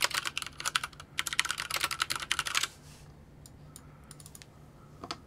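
Fast typing on a computer keyboard in two quick runs of keystrokes, then a few scattered clicks.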